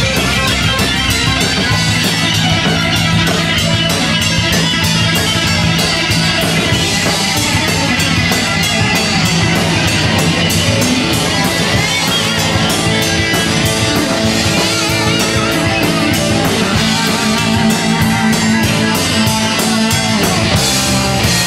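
Loud live rock band playing: two electric guitars over bass guitar and a drum kit, with steady, closely spaced drum and cymbal hits.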